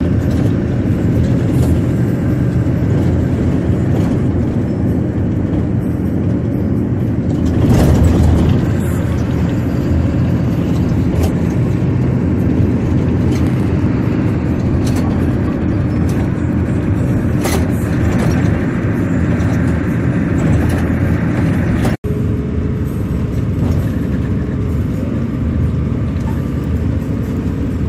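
Steady drone of a moving coach bus heard from inside the cabin: engine hum with tyre and road noise at highway speed. It swells briefly about eight seconds in and cuts out for an instant near the end.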